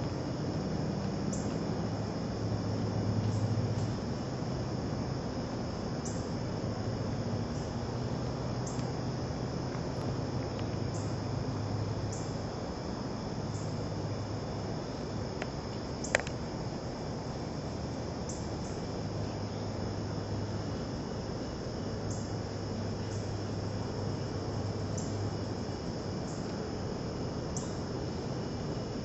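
Insects trilling steadily in the woods. A single sharp click comes about halfway through.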